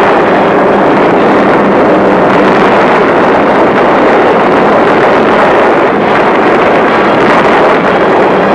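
Bomber aircraft engines and rushing air heard as one steady, dense noise, with no distinct beats, bangs or changes.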